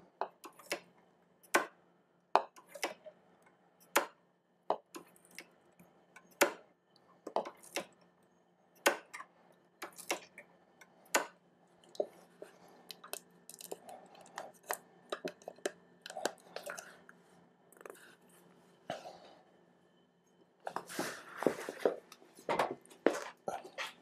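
Irregular light clicks and taps of a spanner and brake parts being handled at a motorcycle's rear brake caliper during brake bleeding, with a longer stretch of rustling and handling near the end.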